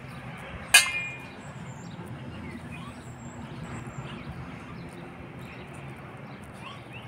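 A single sharp clink of a dish being knocked, with a brief ring, about a second in. Behind it a steady low hum and faint bird chirps.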